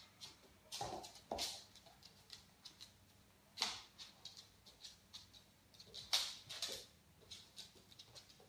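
Standard Schnauzer puppy scampering and playing with toys on a hardwood floor: an irregular run of short scuffs, taps and claw clicks, with louder ones about a second in, near the middle and just past six seconds.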